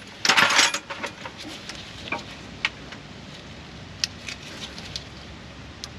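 Metal tools being handled: a short burst of clattering and clinking about half a second in, then a few separate sharp metallic clicks spread through the rest.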